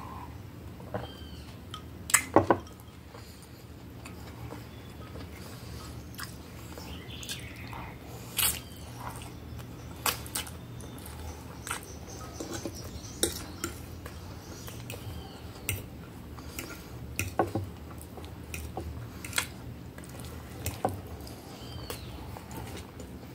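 Close-up eating sounds: chewing and wet mouth smacks of spaghetti being eaten, with scattered sharp clicks of a fork and glass against the plate. The loudest is a quick cluster of knocks about two seconds in.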